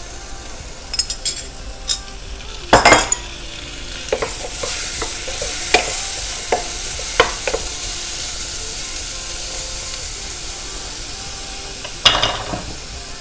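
Garlic sizzling in butter in a pan while a utensil stirs it, with knocks and scrapes of the utensil against the pan, the loudest about three seconds in. The sizzle grows louder from about four seconds in.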